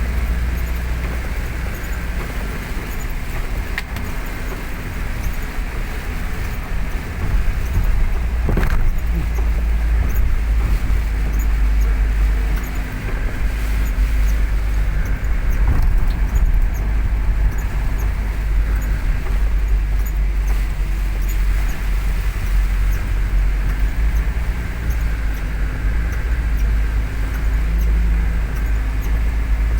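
Car driving in heavy rain: a steady low road rumble with the hiss of rain and wet tyres, and a brief thump about nine seconds in.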